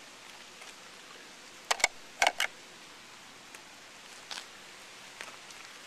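A few sharp knocks: two quick ones a little under two seconds in, three more just after, then a fainter one later.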